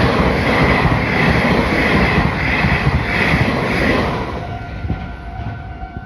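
Meitetsu electric train running past through a level crossing, a loud rushing rumble of wheels on rail that fades about four seconds in. As it fades, the crossing's warning bell is left ringing steadily.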